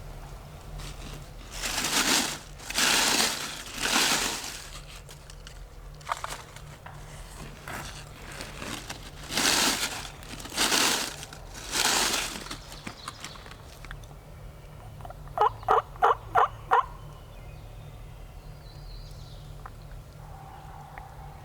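Wild turkeys gobbling: two rounds of three loud gobbles, followed near the end by a quick run of five short yelps.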